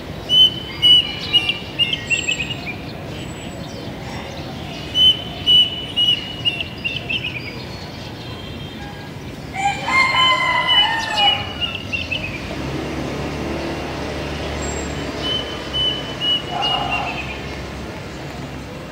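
Plaintive cuckoo singing: phrases of clear, slightly falling whistled notes, heard three times. About ten seconds in, a louder, coarser call from another bird cuts across them.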